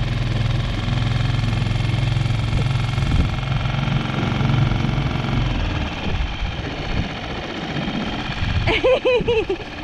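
Small outboard motor on an inflatable dinghy running steadily under way, showing the motor works. Its steady drone weakens about five seconds in, and a voice comes in near the end.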